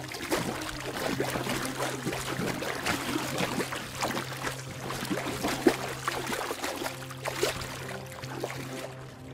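Water splashing in quick, irregular bursts as an antelope bounds through shallow water, over a steady low hum.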